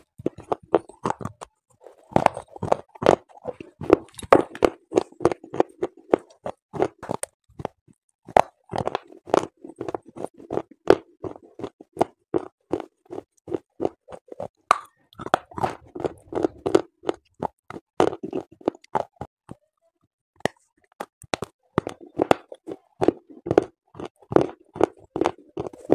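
Close-up crunching and chewing of pieces of unglazed baked clay from a clay pot: gritty crunches in quick succession, with a brief pause about three-quarters of the way through.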